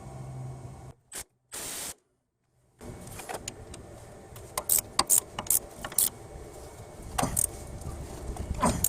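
Irregular sharp metallic clicks and clinks of a wrench working the hub-and-bearing assembly's mounting bolts as they are tightened. A low hum opens the sound, broken by a short gap about a second in.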